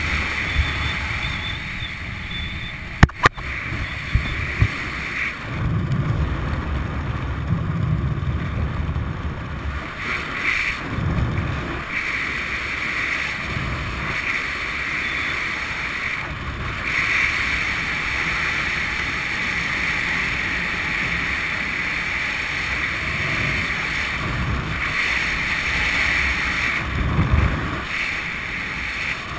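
Wind rushing over a camera microphone during a descent under an open parachute canopy, with low gusts swelling and easing throughout. A single sharp click about three seconds in.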